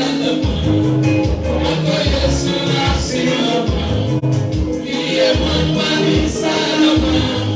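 Live worship music: gospel band with singers, a driving bass line and percussion.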